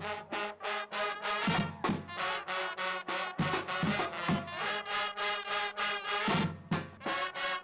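Upbeat brass-band music with horns and a regular drumbeat.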